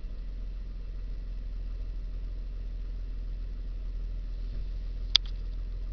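2000 Nissan Xterra engine idling, a steady low hum heard from inside the cabin, with one sharp click about five seconds in. The idle is rough, and the owner believes the RPMs are not quite correct.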